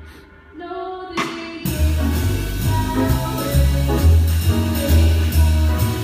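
Jazz ensemble playing live with drum kit, horns and piano. A held chord fades away and a few soft notes follow. About a second and a half in, the full band comes in with cymbals and strong bass notes.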